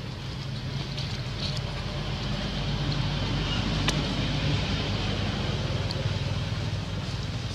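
Steady low hum of a running engine, swelling slightly midway, with a single sharp click about four seconds in.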